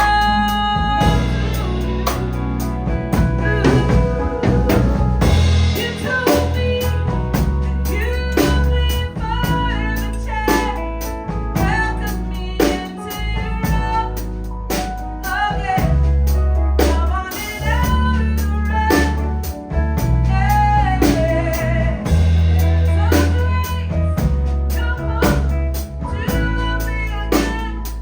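Live band performing an R&B ballad, a woman singing lead over drums, bass and guitar.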